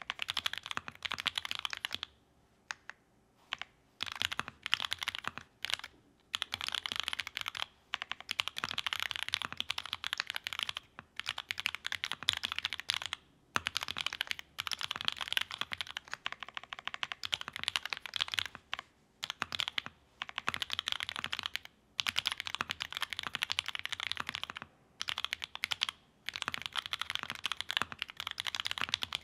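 Typing on a GEON F1-88 raw-aluminium mechanical keyboard with lubed JWK ALS linear switches (nylon housings, POM stem), PBT keycaps and an FR-4 plate. There are fast runs of keystrokes lasting several seconds, broken by short pauses.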